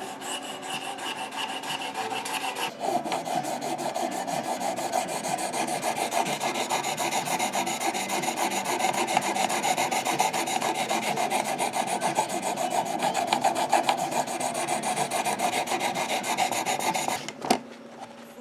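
Knife blade drawn in quick, repeated strokes across an 800-grit sharpening plate on a Work Sharp sharpener, honing the edge after a burr was raised: a continuous rasping scrape that grows stronger a few seconds in. The strokes stop with a click near the end.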